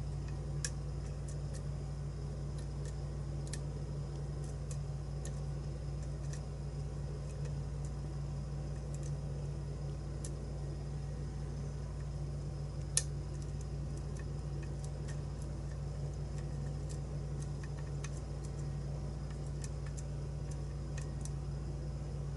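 Lock pick and tension wrench working the pins of a pin-tumbler challenge lock: sparse, irregular faint clicks with one sharper click about 13 seconds in, over a steady low hum.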